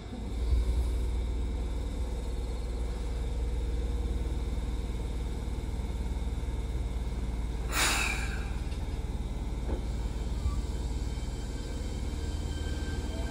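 Fukuoka City Subway 1000N series electric train standing at the platform with a steady low rumble and hum. About eight seconds in comes a short, sharp hiss of air, the brakes releasing. Near the end the train starts to pull away and a faint rising whine comes in.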